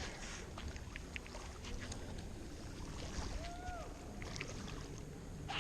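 Low, steady outdoor background noise with a few faint clicks, and one short whistle-like note that rises and falls about three and a half seconds in.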